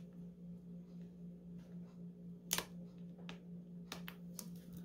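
A few faint clicks and taps of fingers picking small plastic stick-on rhinestones off their backing sheet, the sharpest about two and a half seconds in, over a steady low hum.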